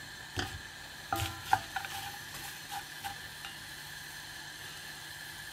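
A spoon stirring noodles in a frying pan, knocking and scraping against the pan several times in the first three seconds, the strokes ringing briefly, over a faint steady sizzle of the food frying.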